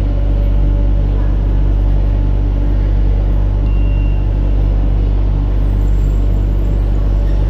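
Steady low rumble and hum of a Madrid Metro train standing at the platform with its doors open, its onboard equipment running. A brief faint high tone sounds about four seconds in.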